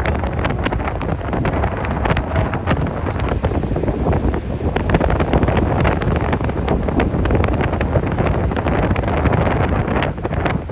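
Strong wind buffeting the microphone in gusts during a ride, over a steady low engine rumble.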